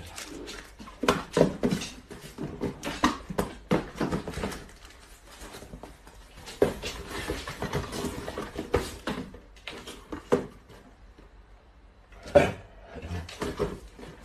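Small cardboard boxes being handled and opened on a tiled floor: an irregular run of knocks, taps and scraping rustles, with one sharp knock near the end.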